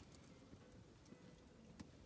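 Faint crackling of a wood campfire: scattered small pops and snaps, with one sharper pop near the end.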